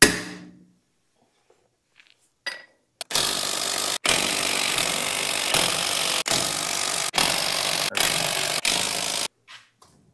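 A sharp crack as a lug nut breaks loose under a long wrench. About three seconds in, a cordless impact wrench starts hammering lug nuts off a truck wheel, running for about six seconds in several bursts with short breaks between.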